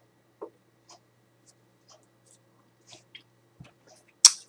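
Faint, scattered small clicks and ticks of handling at a desk over a low steady hum, then a short, sharp intake of breath near the end.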